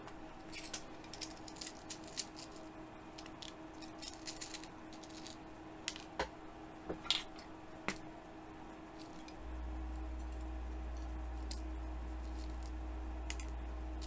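Light clicks and taps of a small diecast toy car and hand tools being handled on a workbench, most of them in the first eight seconds. About nine seconds in, a low steady hum switches on and keeps going.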